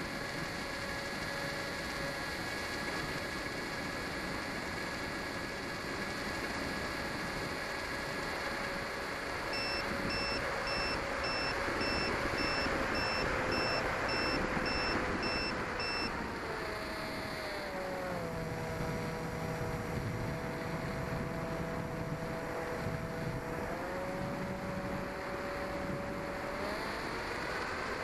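Custom-wound 1600kv brushless motor and propeller of a small FPV model plane running with a steady whine over a rush of wind noise. About two-thirds of the way in the pitch glides down and holds lower as the motor slows, then rises back near the end.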